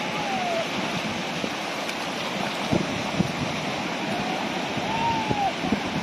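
Small sea waves washing steadily over a shallow sandy beach, with a child splashing in the water and a few short splashes near the middle.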